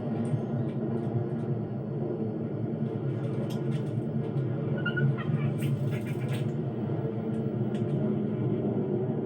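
Low, steady buzzing drone of a grasshopper swarm's beating wings, with scattered light clicks over it.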